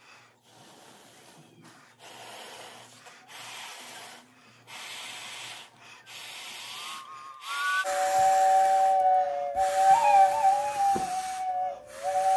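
Homemade trash-bag bagpipe: a series of breathy puffs, each about a second long, as air is blown through a straw into the bag. About eight seconds in, the two soprano recorders in the filled bag start sounding together as two steady piping notes, louder than the puffs, that waver and dip in pitch near the end.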